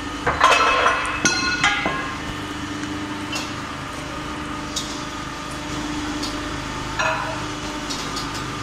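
Steel excavator track-chain parts clinking and ringing against each other: a quick cluster of sharp clinks in the first two seconds, then a few lighter ones, over a steady hum.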